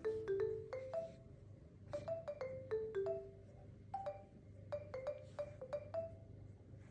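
Background music: a light, bouncy tune of short struck notes in a mallet-percussion sound, several notes a second.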